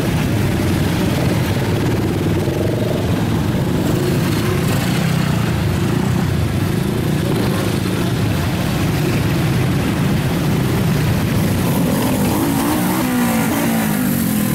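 Loud, steady rumble of vehicle engines from road traffic.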